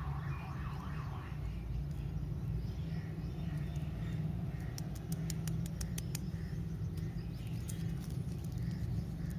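Candy wrappers crinkling and clicking as lollipops are unwrapped and handled by hand, with a cluster of sharp crackles in the middle, over a steady low rumble.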